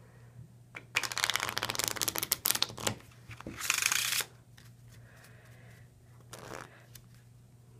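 A deck of playing cards riffle-shuffled on a felt mat: a rapid run of card-edge clicks for about two seconds, then a brief smooth rush as the two halves are pushed together, and a softer brushing sound about six and a half seconds in as the deck is squared.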